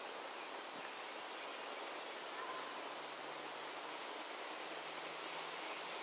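Steady outdoor ambient hiss of a wooded yard, with a few faint, brief high chirps from small birds and a faint low hum in the second half.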